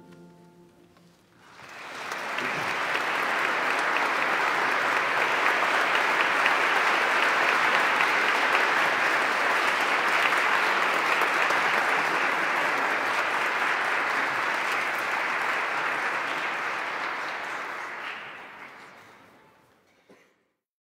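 The last held chord of the choir and strings dies away, then an audience applauds steadily for about sixteen seconds, fading out near the end.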